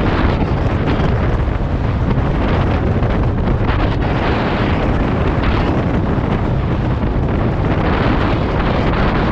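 Loud, steady wind noise buffeting a GoPro Hero 7 Black's microphone during a bicycle ride.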